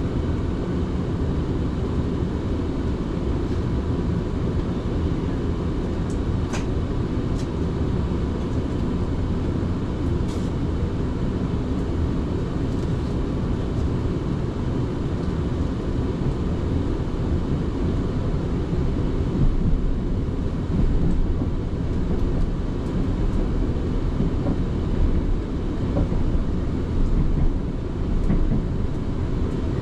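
Steady low rumble of a South Western Railway passenger train heard from inside the carriage, with a faint steady hum and a few light clicks; the rumble grows a little louder and rougher about two-thirds of the way through.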